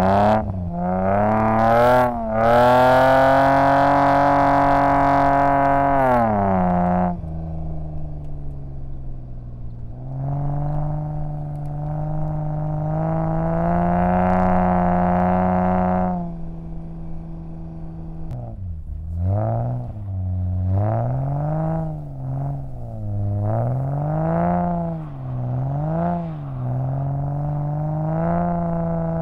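BMW E34 5 Series engine heard from inside the cabin, revving hard while the car is driven sideways on snow. The revs climb and hold high, drop, then climb and hold again, and over the last ten seconds rise and fall quickly with rapid throttle blips.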